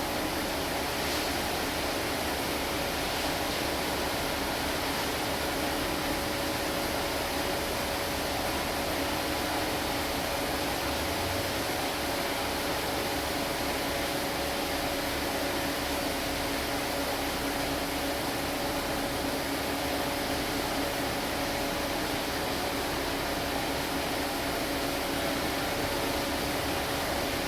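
Steady mechanical hum over an even hiss, with two constant tones and no change in level.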